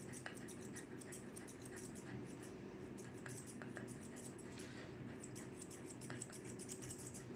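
Grooming shears snipping through a Shih Tzu's fur, a quick run of faint crisp snips that pauses briefly about halfway and then resumes.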